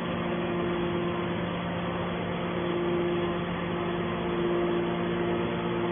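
Scrap metal baler running, a steady machine hum with a higher tone that fades in and out.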